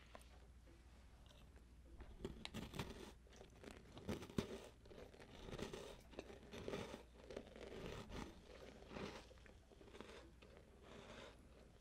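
Close-miked crunching and chewing of a small crunchy chocolate cookie. Quiet at first; from about two seconds in come short crisp crunches and then steady chewing.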